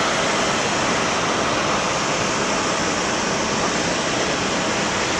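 Boeing 787-9 airliner's twin Rolls-Royce Trent 1000 turbofans at takeoff thrust during the takeoff roll, a steady even roar.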